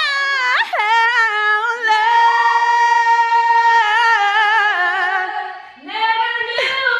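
A woman singing loudly without accompaniment, holding one long steady note for about three seconds before breaking off briefly and starting another phrase.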